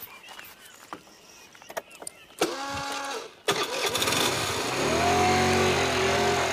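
Motor scooter being started: a brief whine about two and a half seconds in, then the engine catches about a second later and revs as the scooter pulls away.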